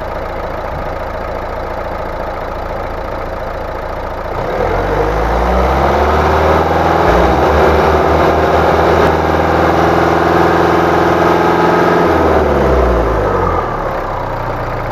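Mercedes-Benz car engine idling, then revved up about four seconds in and held steady at about 2500 rpm for several seconds for an alternator charging test, then let fall back to idle near the end.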